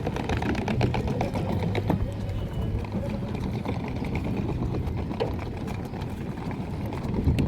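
Boat engine running steadily at a constant pitch, with a fast, even pulsing beat.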